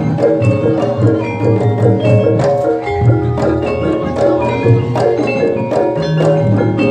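Javanese jaranan gamelan music played loud and steady: bronze mallet instruments strike quick, repeating melodic figures over regular drum beats.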